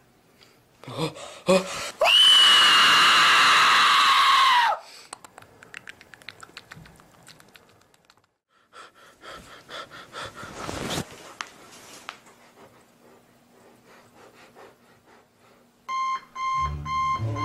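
A person screams loudly for nearly three seconds, the pitch sweeping up at the start and dropping away at the end. Near the end, an alarm clock starts beeping in quick, even pulses.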